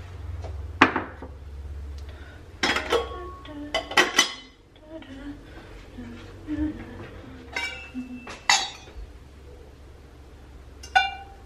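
Kitchenware knocking and clinking on a countertop: a glass storage container set down, then a stainless steel pot and its metal lid handled. There are about six sharp knocks spread apart, and the later ones ring briefly with a metallic tone.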